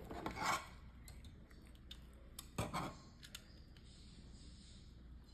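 Small plastic Lego bricks being handled and clicked together, with scattered light clicks and two short louder rustles, about half a second and two and a half seconds in.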